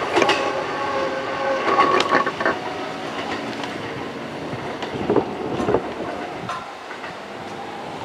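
Kintetsu 22000 series ACE electric limited express running past on the rails, its wheels clicking over the rail joints, the sound fading as the train draws away.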